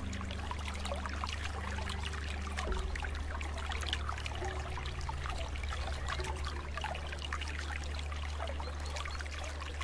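Quiet background track: soft held notes over a steady low hum, with a dense, irregular crackle like trickling water.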